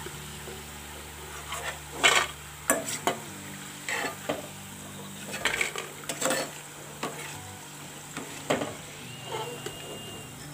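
Banana slices frying in hot oil with a steady sizzle. A perforated metal ladle clinks and scrapes against the pan at irregular moments as the finished, crisp chips are lifted out.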